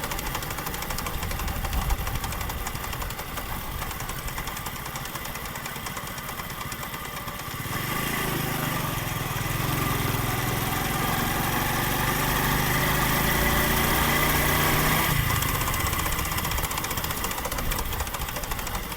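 Honda CD70's single-cylinder four-stroke engine running as the bike is ridden. From about eight seconds in, a pitched gear whine grows louder and slowly rises in pitch, then drops away after about fifteen seconds. This noise from the gearbox comes only in fourth gear; the mechanic points to a loose gear-changer bolt, which often lets the shift fork work improperly so the gears catch on each other.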